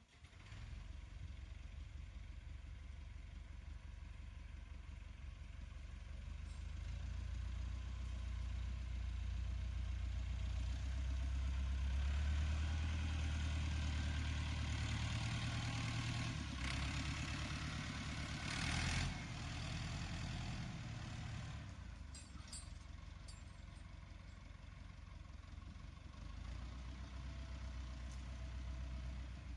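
Landini 6870 tractor's diesel engine running steadily, its rumble building over the first dozen seconds and easing off past the middle, with a brief louder rush of noise about two-thirds of the way in.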